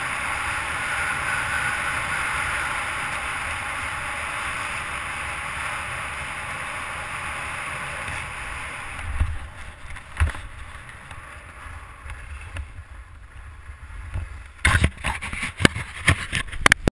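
Skis carving down a groomed, packed-snow piste, with a steady rush of sliding and wind. The rush dies down about halfway through as the run slows. Near the end come a handful of sharp knocks and rubs against the camera.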